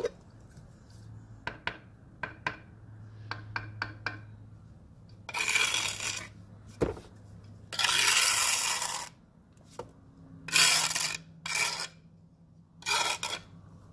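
Steel mason's trowel scraping excess mortar off the joints of a concrete block wall in about five long scraping strokes, after a run of light clicks and taps in the first few seconds.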